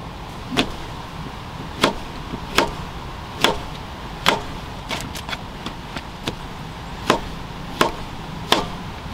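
A kitchen knife slicing button mushrooms on a cutting board. The blade knocks against the board about a dozen times, roughly once a second and unevenly spaced.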